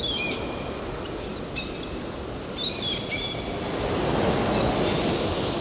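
Sea waves washing on a shore, swelling louder after about four seconds, with a bird giving several short whistling calls in the first half.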